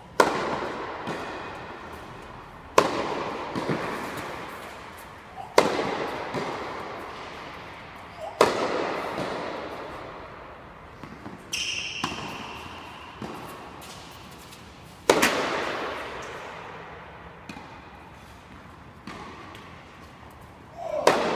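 Tennis racquet striking the ball on overhead smashes: sharp pops about every three seconds, each ringing out in the long echo of an indoor tennis hall, with lighter knocks in between.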